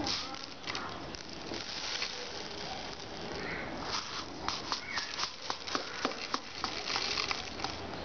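Pearl millet grains poured from a plastic jar through a plastic funnel into a plastic bottle, pattering in many small ticks and clicks that come thickest in the second half.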